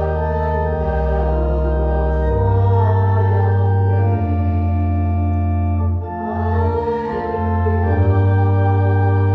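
Organ playing sustained chords over a deep pedal bass, moving to a new chord every second or two.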